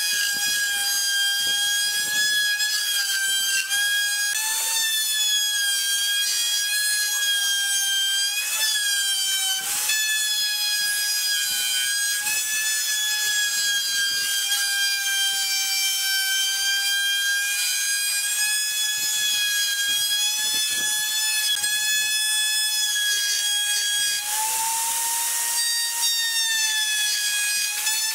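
Electric plunge router running with a high, steady motor whine, its pitch dipping slightly as the bit cuts into the wooden tabletop. Near the end the pitch rises briefly, with a burst of hiss.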